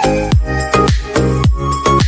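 Background electronic dance music with a steady kick-drum beat, a little over two beats a second, under sustained synth notes.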